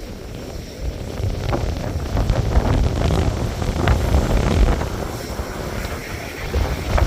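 Rough surf breaking on a beach, with strong wind buffeting the microphone. The wash of the waves swells about a second in and stays loud for a few seconds before easing.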